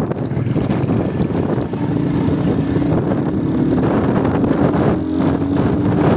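70cc motorcycle engine running at a steady speed while riding, mixed with wind noise on the microphone; a steady engine note holds from about two seconds in.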